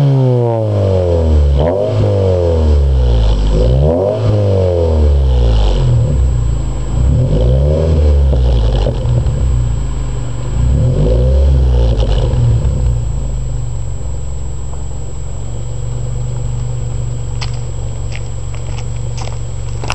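2006 Scion tC's 2.4-litre inline-four through an aftermarket header, high-flow catalytic converter, Magnaflow resonator and axle-back exhaust, blipped several times so the revs rise and fall back. It then settles to a steady idle for the last several seconds.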